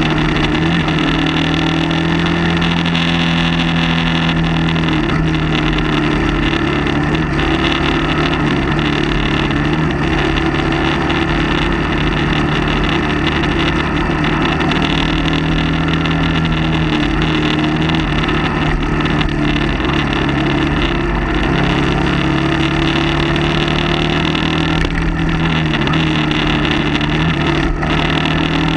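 Motorcycle engine running steadily under way, its pitch dipping and rising a few times as the throttle eases and opens.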